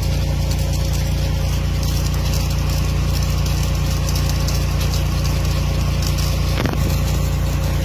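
An engine running steadily with a low hum, under a constant hiss of water spraying from irrigation sprinklers.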